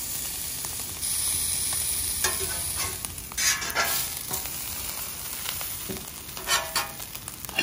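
Cuban sandwich sizzling on the hot steel plate of a 17-inch portable flat-top griddle, with a metal spatula scraping and tapping on the griddle several times, in short strokes about two, four and six and a half seconds in.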